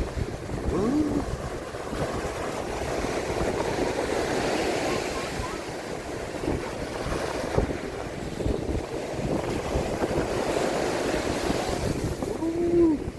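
Sea surf washing onto the beach, swelling and easing, with wind buffeting the microphone. A brief short cry sounds about a second in and again, louder, near the end.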